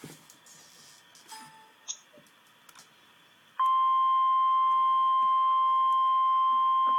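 Emergency alert broadcast: a few faint clicks and short blips, then, about three and a half seconds in, the loud, steady single-pitched alert tone (the weather-radio warning tone near 1050 Hz) starts abruptly and holds without a break.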